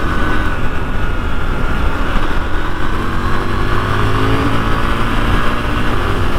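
KTM 990 Duke parallel-twin motorcycle engine running while riding at a fairly steady speed, its faint hum almost buried under a heavy, steady rush of wind and road noise.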